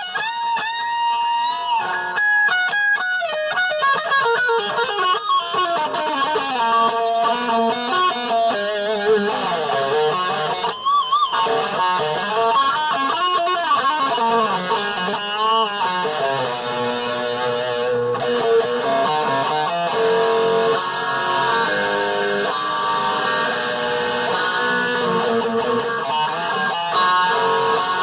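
Dean Switchblade electric guitar played solo: single-note lead lines with sustained notes, string bends and vibrato, with wide swooping pitch bends around the middle.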